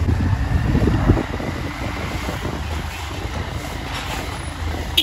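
Ride on a motorcycle along a town street: a steady low rumble of engine and road noise, loudest for the first second and then easing to an even level.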